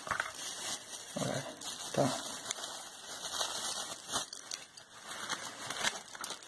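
Plastic packaging crinkling and rustling as a small metal tripod and a bagged phone holder are handled, with a few light clicks.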